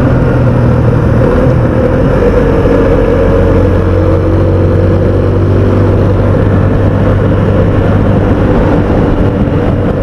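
Benelli motorcycle engine running steadily while riding at road speed; its note steps down a little about a second in and then holds even.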